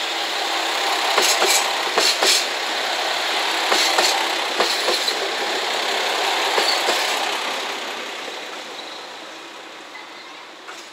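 JR Shikoku 2000 series diesel multiple unit running past on arrival: the steady rumble of its engines and wheels, with wheels clicking over rail joints in quick pairs. The sound fades away after about seven seconds as the last car goes by.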